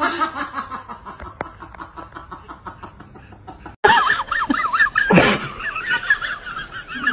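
People laughing: a run of evenly spaced laughs that fades over the first few seconds, then after a cut a higher, wavering laugh, with a short loud burst about five seconds in.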